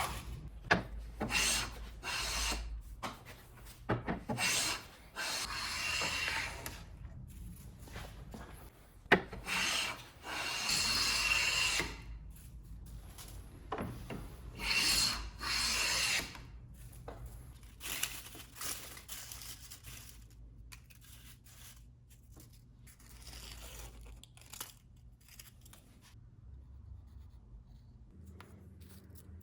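Hand work on wood: irregular rubbing and scraping strokes, a few drawn out for a second or two, with occasional light knocks. The strokes grow fainter and sparser in the second half.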